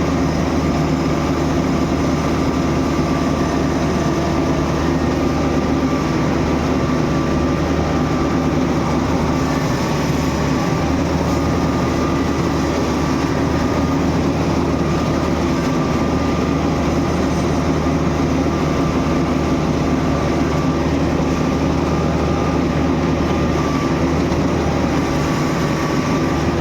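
Gam combine harvester running steadily, a continuous engine and machinery drone with a faint wavering whine, typical of the machine at work cutting paddy.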